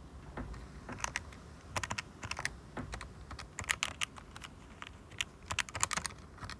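Calculator keys being pressed as numbers are entered: irregular clicky taps, some in quick runs of three or four.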